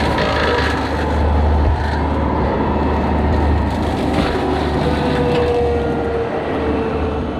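Small excavator's engine running steadily with its hydraulic bush-hog brush-cutter head, with scattered crackles of brush being cut. A steady whine comes in about halfway, and the sound eases off near the end.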